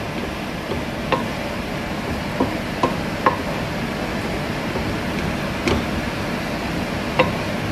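Wooden spatula stirring fried rice in a wok, knocking and scraping against the pan about six times at irregular intervals over a steady frying hiss.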